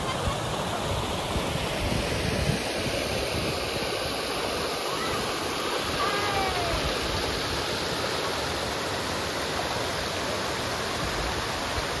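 Waterfall of about 12 m in two tiers, running at low dry-season flow: a steady, even rush of falling water.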